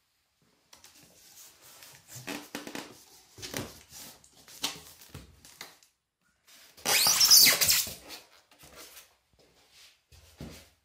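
Cardboard packaging handled by hand as the box is opened: rustling and scuffing of the flaps, then a louder scraping about seven seconds in as the polystyrene packing insert is pulled out, and a dull knock near the end.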